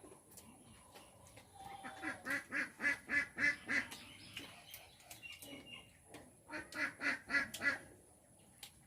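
An animal calling in two quick runs of repeated, evenly spaced calls, about four or five a second, the second run about three seconds after the first.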